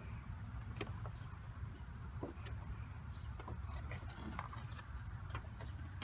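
Hands working at a stuck headlight bulb behind the headlight housing: scattered light clicks and taps over a steady low rumble.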